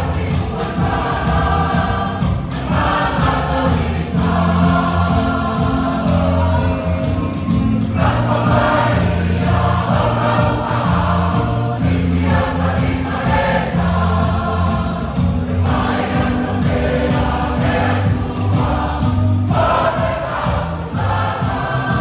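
A church choir singing a hymn in sung phrases a few seconds long, over steady low bass notes.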